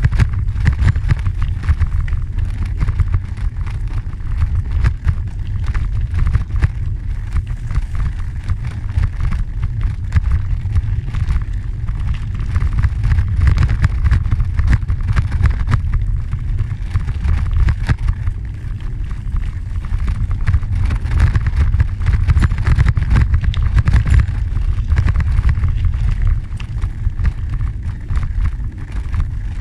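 Wind buffeting the microphone in a continuous low rumble, mixed with the noise of tyres rolling over a packed gravel trail while riding along at a steady pace.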